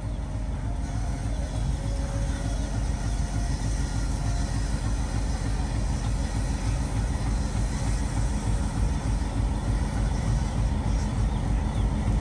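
Diesel locomotive engine running with a steady low throb as it hauls a passenger train slowly toward the listener, growing gradually louder.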